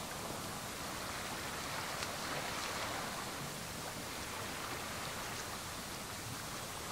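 Steady rushing ambience of an open rocky seashore, with no single event standing out.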